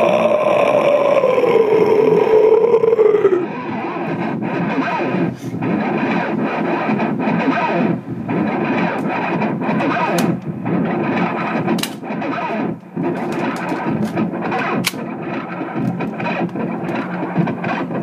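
Electric guitar played through distortion and effects. A held note slides down in pitch over the first three seconds or so, then gives way to a rough, scratchy noise texture broken by sharp clicks.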